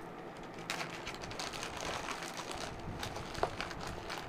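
Faint irregular ticking and rustling, starting about a second in, with one sharper tick near the end: a pen and hand moving over notebook paper.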